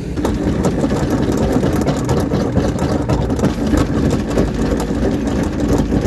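An engine running with a rough, irregular rattle, likely the boat's motor under way.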